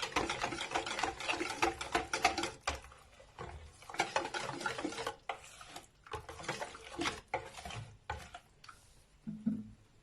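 Hand whisk beating a wet pizza-dough batter in a bowl as flour is worked in, fast scraping and clicking strokes that come in several bursts with short pauses.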